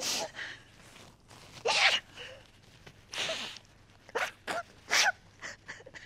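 A woman crying: a series of sharp sniffles and shaky, breathy sobs, a few with a brief catch of voice.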